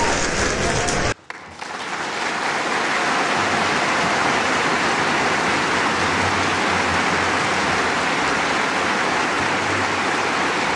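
Steady applause, a dense even clatter of many hands clapping, which starts after a brief drop about a second in.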